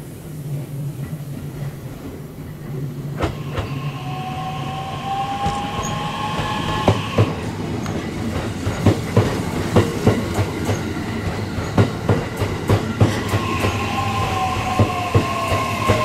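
JR East E131-series electric train pulling in alongside the platform: its motors give a whine that shifts in pitch and falls near the end as it slows, over a run of sharp wheel clacks across the rail joints.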